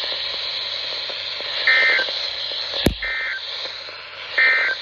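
NOAA Weather Radio over a receiver's steady static hiss, with three short two-tone digital data bursts about a second and a half apart: the SAME end-of-message code that closes the weekly alarm test. A single sharp click comes just before the second burst.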